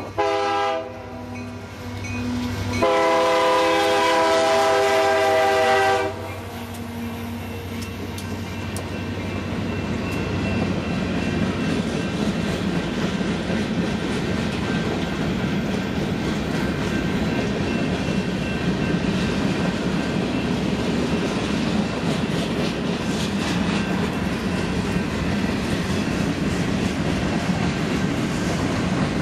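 Diesel freight locomotive's air horn sounding a short blast, then a long blast of about three seconds. The train then passes with a rising, then steady rumble and clatter of wheels on the rails.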